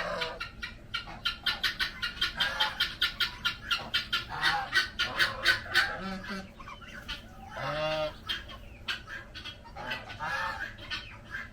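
Backyard poultry calling: a fast run of short, repeated calls, about four or five a second, then a couple of longer drawn-out calls near the end.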